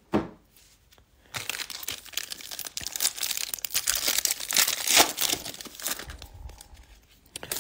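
Foil wrapper of a 2020 Bowman baseball card pack being torn open and crinkled by hand, crackling steadily from about a second in and easing off near the end. A brief knock right at the start.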